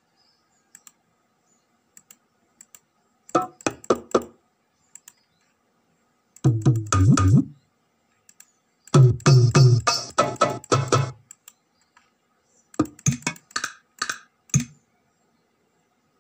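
Octapad drum samples previewed through the computer's speakers as they are clicked in a sample browser: a few quick percussion hits, then two short bursts of a low, dense drum pattern, about one and two seconds long, then more single drum hits near the end, with silence between.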